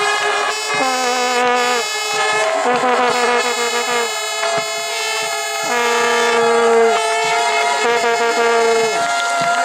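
Spectators' handheld air horns blown to celebrate a goal: several overlapping blasts of about a second each, at different pitches, stopping and starting again and again.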